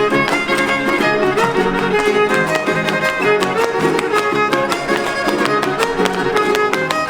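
Mexican huapango played on violin: a quick, ornamented fiddle melody over an even, driving rhythm, with no singing in this stretch.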